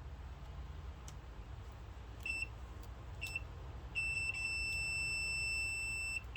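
Multimeter continuity beeper on a car dome light switch: two short beeps, then a steady tone held for about two seconds that cuts off near the end. The switch is making contact only intermittently, a sign of play inside it.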